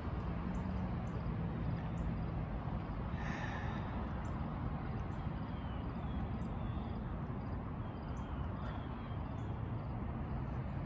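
Steady outdoor background noise on an elevated train platform: a low, even rumble of town traffic, with a few faint high chirps in the middle. No train is heard yet.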